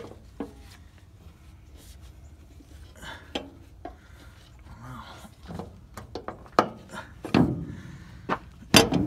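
A rubber bearing flange being pushed and worked by hand over the chopper bearing against the combine's sheet-metal chopper housing: rubbing and handling noise with scattered sharp knocks, more of them in the second half and the loudest near the end.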